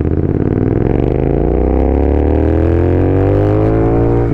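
Royal Enfield Continental GT 650 parallel-twin with an aftermarket AEW exhaust accelerating under way: steady for a moment, then its revs climb smoothly through one gear until near the end.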